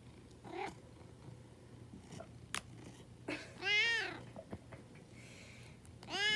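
Domestic cat meowing twice, each meow about a second long and rising then falling in pitch, one mid-way and one near the end, asking for a treat pouch held just out of reach.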